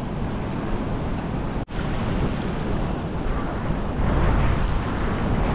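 Seawater surging and washing over a rocky tidal shelf, with wind buffeting the microphone. The sound cuts out for an instant about a second and a half in.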